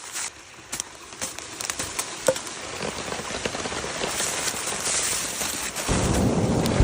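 Rain falling steadily, with scattered crackling ticks, and a low rumble of thunder setting in near the end.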